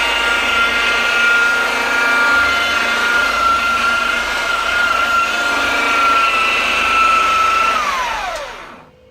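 Electric power tool motor running at a steady high whine, then switched off about eight seconds in and spinning down, its pitch falling quickly as it stops.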